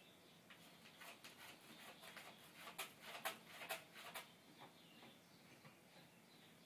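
Faint scratching of a cat's claws on ceramic floor tiles: a run of quick scrapes starting about half a second in and stopping about four seconds in, loudest in its last second.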